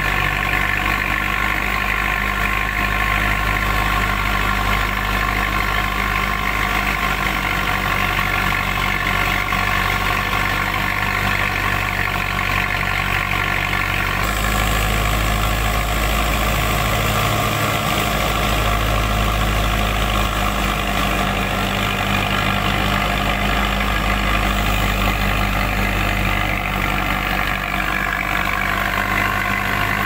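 Belarus tractor's diesel engine running steadily under load, driving a wheat thresher through its power take-off shaft, with the thresher's steady mechanical hum mixed in. The sound shifts slightly about halfway through.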